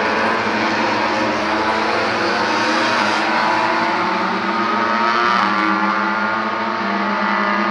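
Several MotoGP racing motorcycles' 1000 cc four-cylinder engines running at high revs as they ride past. Their overlapping engine notes rise and fall in pitch.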